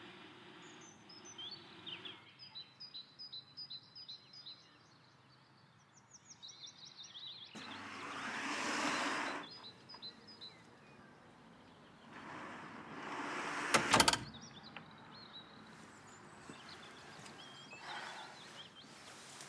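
Small birds chirping in short repeated phrases, with two swells of rushing noise that rise and fade, the second ending in a sharp knock about fourteen seconds in, the loudest moment.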